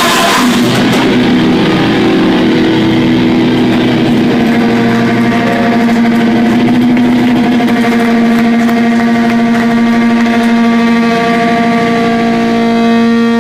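Electric guitar amplifier feedback: a loud, steady howl of held pitches ringing on once the drums stop. A cymbal crash sounds at the very start, and higher overtones join about four seconds in and again near the end.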